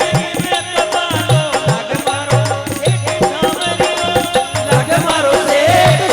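Rajasthani devotional folk music: an instrumental passage with drums and rattling percussion keeping a fast, even beat under a melody.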